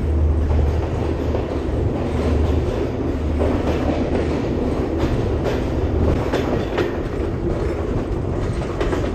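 Passenger train pulling out of a station and moving off, heard from the carriage doorway: a steady low rumble of the train running, with wheels clicking over rail joints for a few seconds in the middle.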